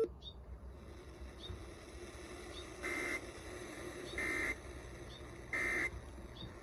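Emergency Alert System end-of-message signal: three short, buzzy digital data bursts about 1.4 s apart, marking the end of the test alert.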